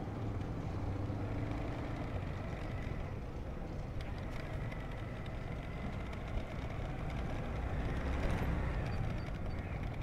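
Steady vehicle engine and road noise while travelling along a street in light traffic, first close behind an auto-rickshaw and then passing it. There are a few faint clicks.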